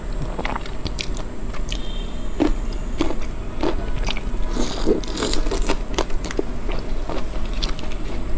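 Eating a whole raw marinated prawn: irregular crunching and crackling of the shell as it is bitten and pulled apart, with wet chewing, close to the microphone.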